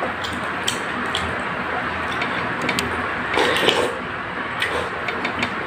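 Eating noises: a metal spoon clinking against the bowl now and then, and a slurp of noodles about three and a half seconds in, over a steady hiss.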